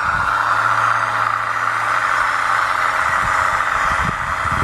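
1:16 scale RC crawler dozer's electric drive and gearbox running as it drives along the sand, a steady whir with some low clatter from the running gear in the second half.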